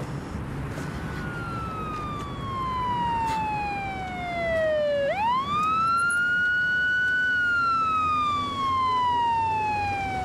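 Police car siren wailing: a slow falling tone that sweeps quickly back up about halfway through, holds for a moment, then falls slowly again, over a low rumble of traffic.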